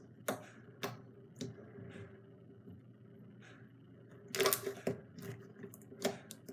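Thick, sticky slime being poked and squished by fingers, giving sharp wet clicks and pops: scattered single pops, then a quick run of them a little past four seconds in, the loudest part. A faint steady hum runs underneath.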